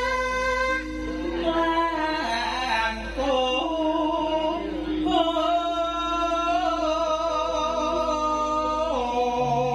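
A woman singing in the sinden style, holding long notes that waver slightly and slide between pitches over a steady instrumental accompaniment.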